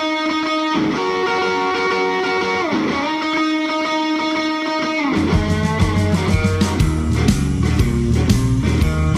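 Guitar-led rock intro music: long held guitar notes with bends, then bass and drums come in about five seconds in with a steady beat.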